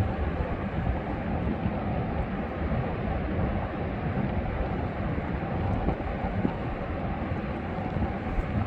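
Ocean waves and wind: a steady, low rumbling noise with no breaks.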